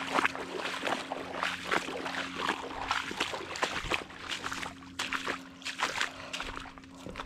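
Footsteps splashing through shallow puddles and crunching on wet gravel, a quick, irregular run of sloshes and crunches.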